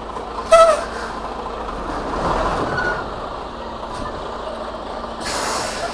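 Semi-truck running at low speed while it maneuvers, its engine swelling a little a couple of seconds in, with a short hiss of air brakes near the end.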